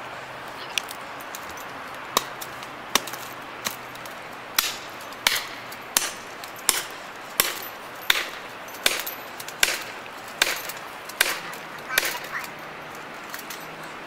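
Axe poll hammering a felling wedge into the back cut of a large tree: a steady run of sharp strikes, about one every three quarters of a second, driving the wedge to tip the tree over.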